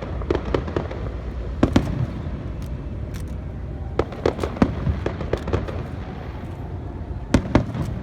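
Fireworks display: aerial shells bursting in sharp bangs and crackles, coming in small clusters with short gaps, over a steady low rumble.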